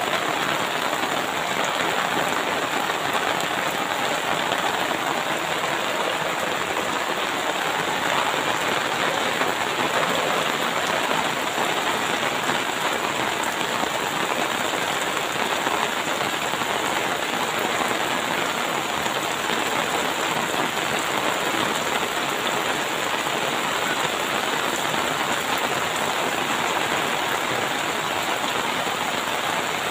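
Heavy rain pouring steadily onto flat rooftops, splashing into the standing water that covers them.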